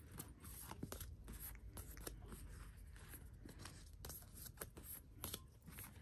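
Thick cardboard photocards handled and shuffled into a stack: faint, scattered soft clicks and brushing of card against card.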